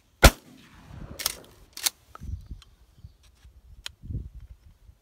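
A single loud shotgun shot about a quarter second in, with its echo trailing off. A couple of sharper, quieter clicks or knocks follow about a second and a second and a half later.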